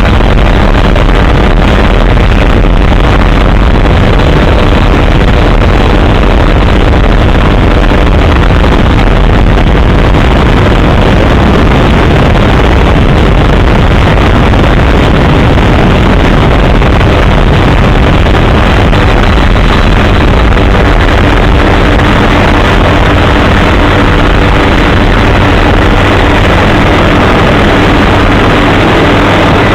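Helicopter engine and rotor noise, loud and steady throughout.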